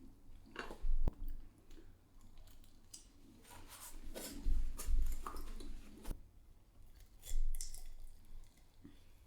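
Eating sounds: biting into and chewing crispy-coated baked chicken wings, with irregular small clicks and crunches and a few louder knocks about a second in, around four and a half to five seconds in, and near seven and a half seconds.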